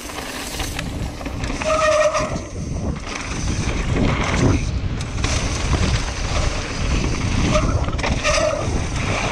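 Downhill mountain bike ridden fast down a dirt and gravel trail, its tyres crunching over dirt and stones and the bike rattling over the rough ground. Two short squeals, about two seconds in and near the end.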